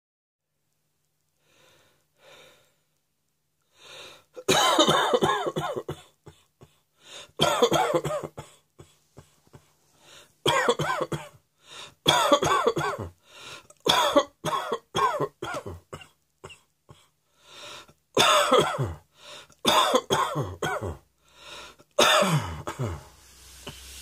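A person coughing hard in repeated fits, starting about four seconds in: about eight bursts of several harsh, voiced coughs each, two to three seconds apart, with short breaths between.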